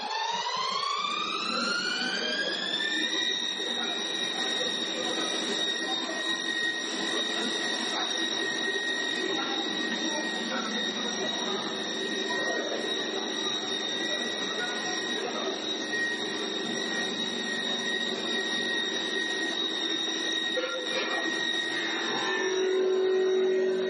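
CNC wood-turning lathe's high-speed spindle motor winding up with a rising whine over about three seconds, then running at one steady high pitch over a steady rush of machine noise. A lower hum comes in near the end.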